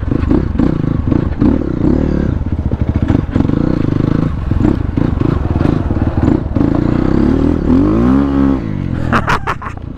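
MXF enduro dirt bike engine running under load as it is ridden over rough off-road ground, with clattering and scraping from the bike and terrain. About eight seconds in the revs rise and fall again.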